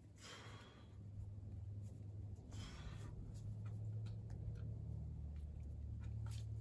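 A bouldering climber's forceful breaths of exertion, two sharp exhales, one right at the start and one about two and a half seconds in, with faint scuffs and taps of hands and climbing shoes on the rock. Under them runs a low steady rumble that grows louder.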